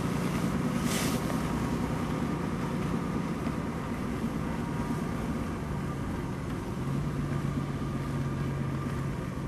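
Car running at low speed, a steady low engine hum and road rumble whose pitch drops a little about six seconds in. There is a brief rush of noise about a second in.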